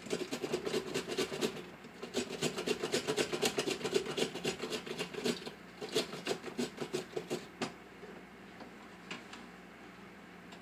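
Celery stalk slid back and forth over a mandoline slicer's blade: quick, even slicing strokes, about six a second, in three runs with short pauses, then they stop, leaving a few faint knocks.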